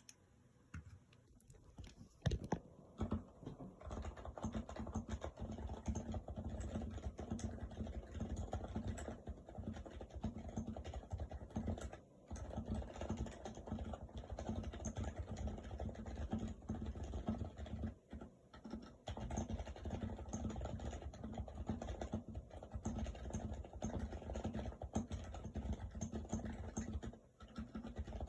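Stock HHKB Hybrid Type-S keyboard being typed on, its silenced Topre electrostatic capacitive keys giving a soft, muted thock. A few scattered keystrokes and one sharper hit about 2 s in lead into fast continuous typing, which pauses briefly three times.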